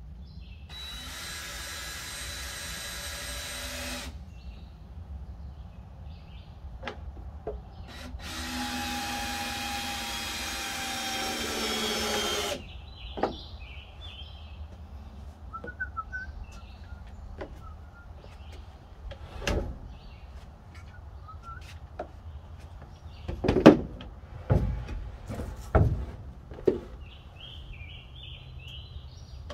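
Power drill driving screws into a wooden lumber frame in two runs of a few seconds each, the second running longer. Then a series of sharp knocks, the loudest about two-thirds of the way through, with birds chirping faintly.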